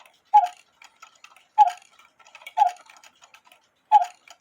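Austrian quarter-hour cuckoo clock's bellows and whistle mechanism, worked by hand with its lever, giving four short sharp puffs with a clatter about once a second, with faint clicks in between. The lever is turned fast, so the puffs come as quick, clipped sounds rather than a full, slow cuckoo call.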